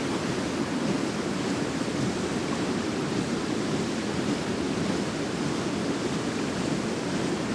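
Fast-flowing river water rushing steadily, an even, unbroken noise with no distinct splashes.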